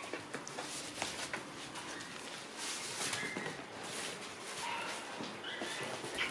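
Shiba Inu puppies at play: scattered soft taps and rustles as a puppy tugs and chews a paper pee pad, with a few short high whines.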